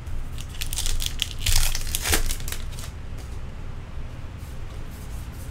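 Baseball card pack wrapper crinkling as it is torn open and crumpled, loudest in the first two seconds, followed by softer rustling of cards handled in the hands.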